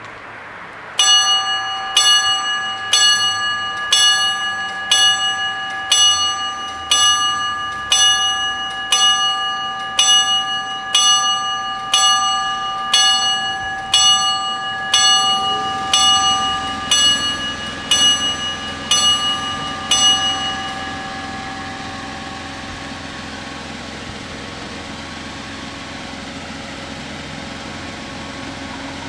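Level-crossing warning bells striking about once a second while the crossing barriers come down, stopping about twenty seconds in once the barriers are closed. After that a steady low engine hum is heard.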